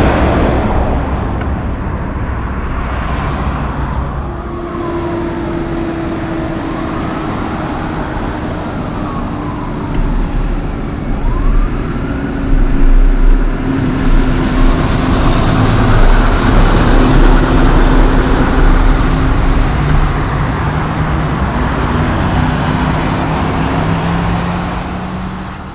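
Tractor-trailers passing on a highway: diesel engine drone and tyre noise, with a truck going by close and loud in the middle. The sound fades out near the end.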